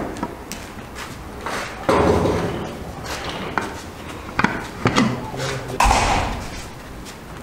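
An upturned aluminium pot clinking and knocking against a serving platter as pilaf is turned out: a handful of sharp metallic clicks and knocks, with indistinct voices in the background.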